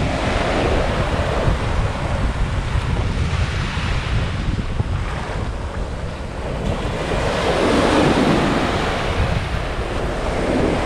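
Ocean waves breaking and washing up a sandy beach, with wind buffeting the microphone as a steady low rumble. The wash swells loudest about seven to nine seconds in.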